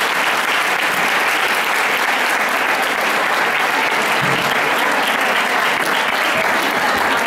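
Audience applauding, a steady, unbroken round of clapping.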